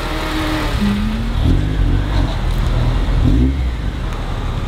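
Car engine running with a steady low exhaust rumble, revving up briefly twice.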